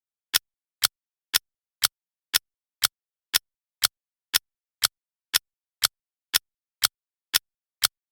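Clock-style ticking from a countdown timer: sharp, identical ticks, two a second, with dead silence between them.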